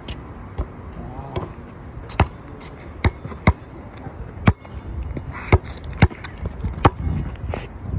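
Basketball bouncing on an outdoor court: about eight sharp bounces at uneven intervals, not a steady dribble.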